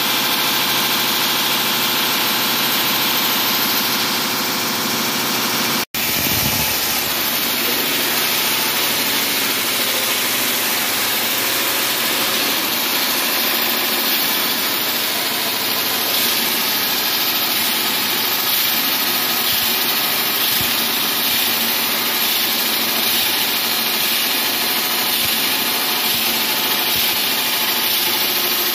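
Wall-sawing machinery running steadily, a continuous engine-like drone with a strong hiss. It cuts out for an instant about six seconds in, then carries on the same.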